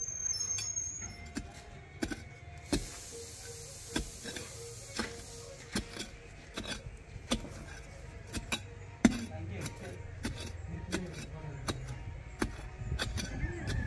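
Scattered sharp clicks and knocks from palmyra sprout tubers being dug up and handled, with a rustling hiss lasting about three seconds, starting a few seconds in, over a low steady rumble.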